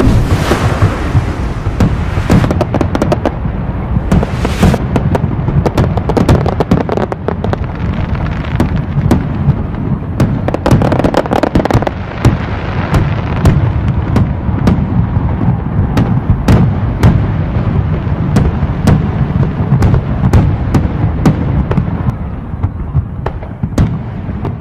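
Fireworks going off without a break: a dense run of booms and crackling, with sharp crackles scattered all through.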